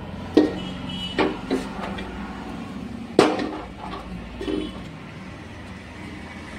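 Scattered metal knocks and clatter as an aluminium pot is handled and set onto a single-burner gas stove's pan support, the loudest knock about three seconds in, over a steady low hum.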